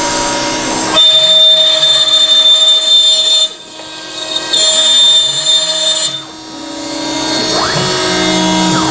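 CNC router cutting a speaker-box brace at 200% speed: the spindle's high whine runs steady, dipping briefly about three and a half seconds in and again around six seconds, over lower tones that shift in pitch as the machine moves and the hiss of the dust vacuum.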